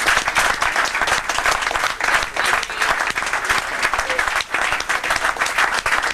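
A small crowd applauding and clapping steadily, with a few voices mixed in.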